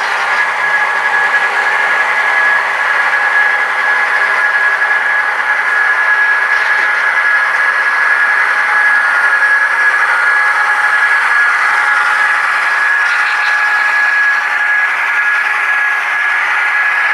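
Model trains running: a steady high whine from small electric motors and gearing over the rolling rumble of metal wheels on track, as a long train of coal hoppers and a diesel-hauled passenger train pass.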